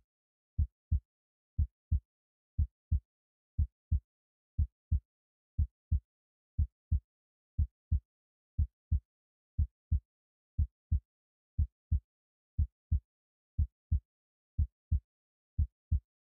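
Heartbeat sound effect: pairs of short, low thumps, lub-dub, repeating steadily about once a second with dead silence between.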